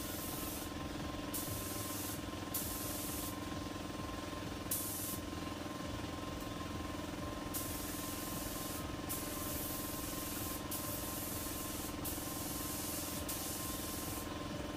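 Compressed-air gravity-feed car spray gun spraying paint onto cabinet doors, the hiss starting and stopping about ten times as the trigger is pulled and released, each burst lasting around a second. A steady hum runs underneath.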